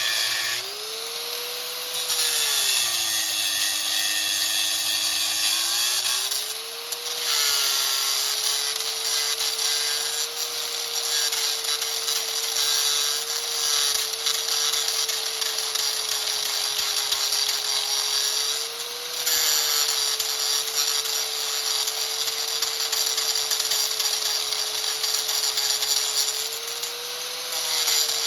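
Electric angle grinder with a cutting wheel cutting into steel bolts, running continuously with a harsh hiss over its motor whine. The motor's pitch drops under load for a few seconds near the start, then lifts briefly a few times as the pressure eases.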